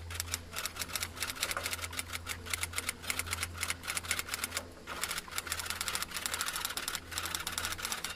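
Rapid clicking from a tester screwdriver turning the screws of a water heater's plastic terminal block, about eight to ten clicks a second in short runs with brief pauses, over a low steady hum.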